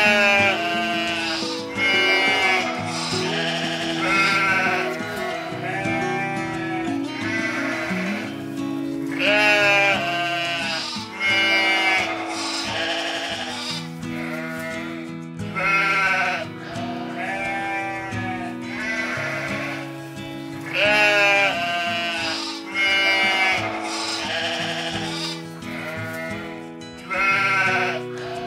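Sheep bleating over and over, a quavering bleat about every two seconds, over steady background music.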